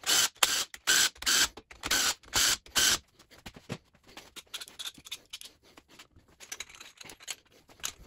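Cordless impact driver hammering in about seven short bursts over the first three seconds, breaking loose the main bearing cap bolts on a Ford 4.6L four-valve DOHC engine block. After that, only quieter light clicks of tool and bolt handling.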